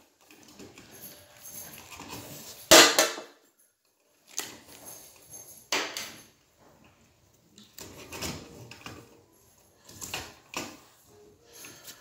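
Hand tools and detector parts being handled during wiring work: scattered sharp clicks and knocks, the loudest about three seconds in, with lighter ones around six and ten seconds, over faint rustling.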